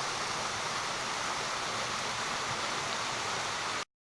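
Steady rush of flowing creek water, cut off abruptly near the end.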